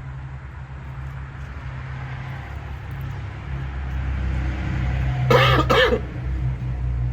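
A man coughs twice in quick succession about five seconds in, set off by the hot wings he is eating, over a steady low hum.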